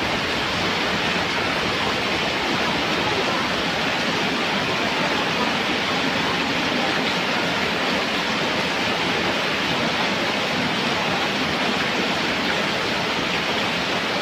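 Heavy rain falling in a steady downpour, an even hiss of water with no thunder claps.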